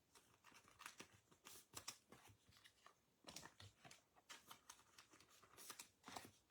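Faint, scattered soft swipes and taps of trading cards being handled and sorted by hand.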